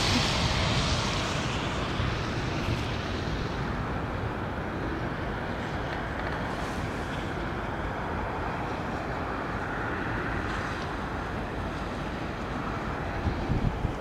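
Steady outdoor rumble of road traffic and wind, with wind blowing on the microphone.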